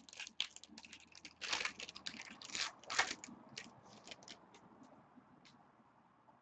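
Foil trading-card pack wrapper crinkling and tearing in the hands: a quick run of sharp crackles, loudest about one and a half and three seconds in, thinning to a few faint ticks after that.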